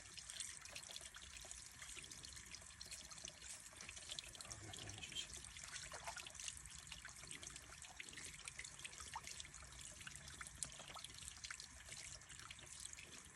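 Faint, steady trickling of water, with many small dripping and splashing ticks over a soft hiss.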